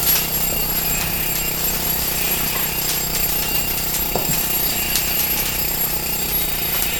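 Steady rushing noise of a wooden pallet fire burning in a smoke-filled burn room, with a few faint clicks and knocks scattered through it.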